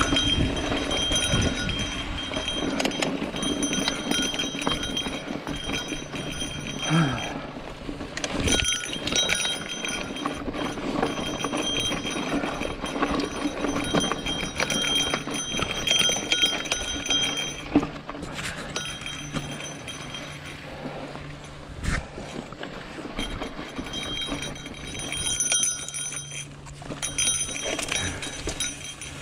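Mountain bike coasting down a rocky dirt trail: tyres crunching over dirt and loose rock, and the bike's chain and frame rattling. Sharp knocks sound from bumps a few times, one near the middle louder than the rest.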